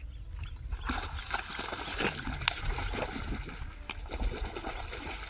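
Water splashing and sloshing: a dense run of irregular splats and sharp clicks, busiest in the middle, over a steady low rumble.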